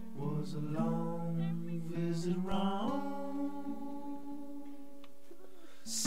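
Background music: a voice singing a slow phrase that ends on one long held note.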